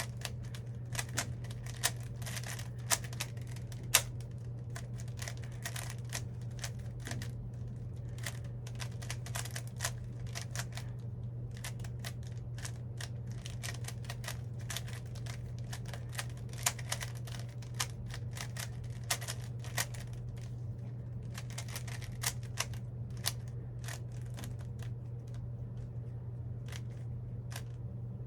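Plastic puzzle cube being turned rapidly by hand, its layers clicking and clacking in quick, irregular runs, with a few louder snaps.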